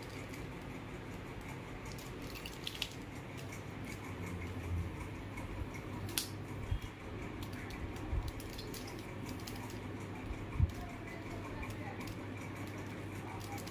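Plastic mirror cube being twisted by hand: scattered soft clicks as its layers turn, over a steady low room hum.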